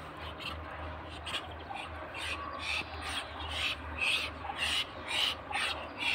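Muscovy ducks making short breathy hisses, about three puffs a second, the stronger ones in the second half.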